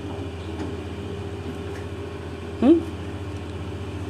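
Automatic roti-making machine running with a steady hum. A short rising vocal sound is heard about two and a half seconds in.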